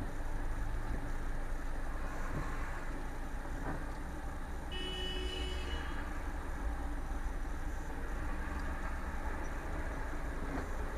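Low steady rumble of idling cars in traffic, heard from inside a car. A car horn sounds once for about a second, about five seconds in.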